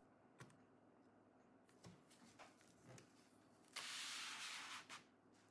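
Near silence with a few faint clicks of tool handling. A soft scraping rustle lasting about a second comes near the end, from a plastic spudger and gloved hands moving over the laptop's battery and chassis.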